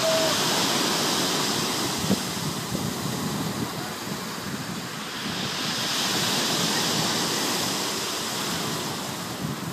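Black Sea surf washing onto the shore, the steady rush of water swelling and ebbing in slow surges.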